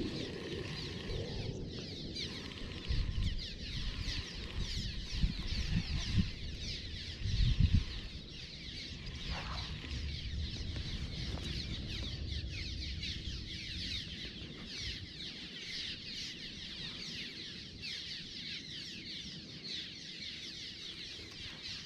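Many small birds chirping and chattering at once, a dense, continuous chorus of short downward-sliding chirps. Low rumbles and bumps are heard in the first several seconds.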